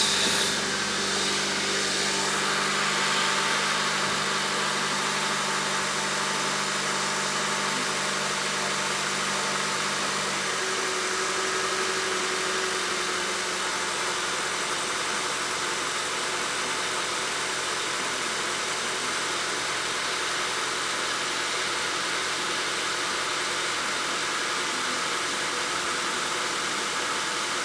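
2013 Honda Accord's 2.4-litre four-cylinder engine idling steadily with a constant misfire on cylinder number 4, traced to a too-tight valve on that cylinder causing low compression. Part of the low hum drops away about ten seconds in.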